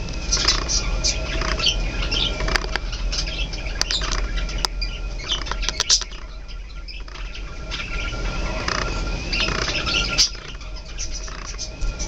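Budgerigars chattering: a busy run of quick chirps, warbles and clicks, easing off for a moment about six seconds in, over a low steady hum.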